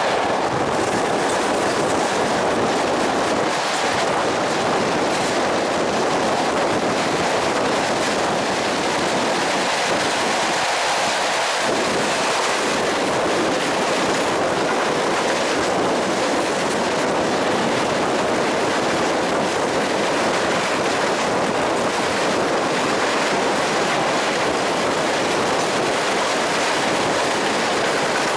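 Train running along the track: a steady, even noise of wheels on rail that keeps up without a break.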